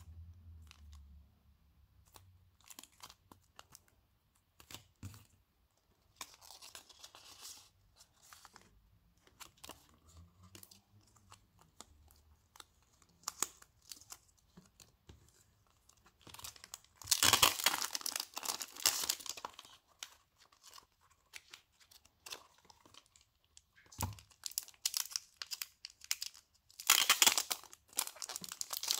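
Plastic packaging and card sleeves being handled, with small rustles and clicks. Twice, once a little past halfway and again near the end, there is louder crinkling and tearing of a plastic wrapper for about two seconds.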